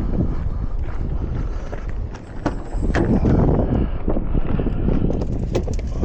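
Wind buffeting the microphone with a steady low rumble, overlaid by a scattered series of sharp clicks and knocks.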